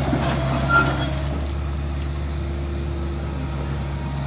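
A heavy diesel engine idling steadily, a low even drone, with a brief high squeak just under a second in.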